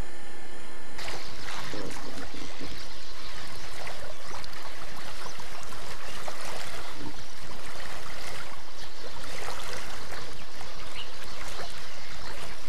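Lake water splashing and lapping: a steady rush of water noise with many small splashes, which comes in suddenly about a second in.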